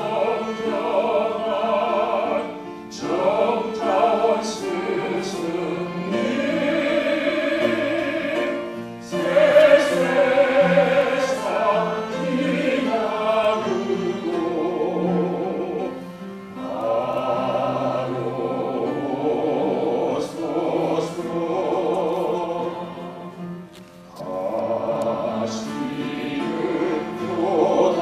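A man sings a slow Korean memorial song with vibrato over instrumental accompaniment. The long phrases are broken by short pauses for breath.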